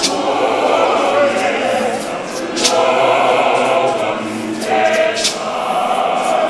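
A church congregation singing and chanting together as a choir, voices held on sung notes, with a sharp percussive hit about every two and a half seconds.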